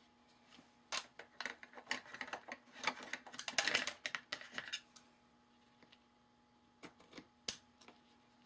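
Satin ribbon and card stock being handled and pressed on a cutting mat: about four seconds of crinkling, rustling and small clicks, then a few light clicks near the end.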